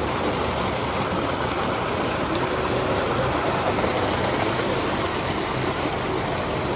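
Tubewell outlet pipe gushing a heavy stream of water into a concrete tank, a steady rush of splashing water.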